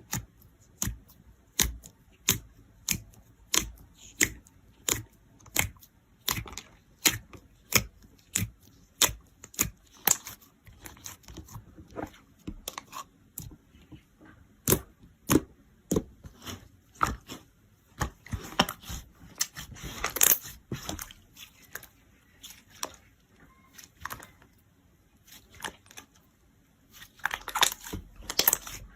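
Slime being pressed and squeezed by hand, making sharp clicking pops at a steady pace of about one and a half a second, breaking into denser crackling runs about two-thirds of the way in and again near the end.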